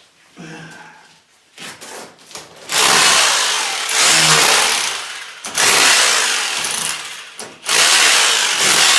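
A handheld power tool run in three loud bursts of about two seconds each, working on the cellar floor around the sewer pipe. Quieter scraping and knocking come before the first burst.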